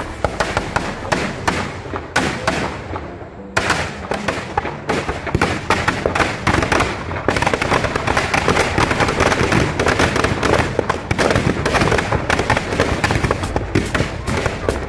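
Firecrackers packed in a burning effigy going off in a fast, irregular string of loud bangs and crackles. The bangs thin out for a moment about two to three seconds in, then come densely and without a break.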